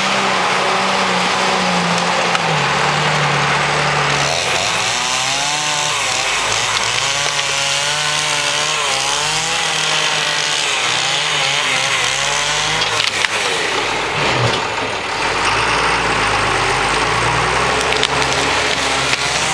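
John Deere 540 grapple skidder's diesel engine running hard, its pitch rising and falling with the throttle. Branches crack and snap under the machine as it drives over the slash.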